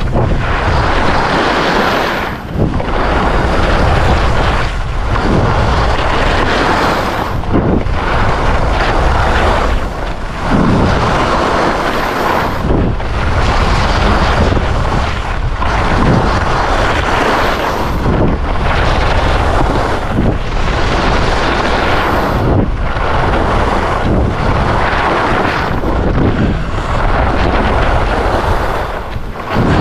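Wind rushing over the microphone of a skier's action camera together with skis scraping across hard-packed snow. The noise swells and eases with each turn, about every two and a half seconds.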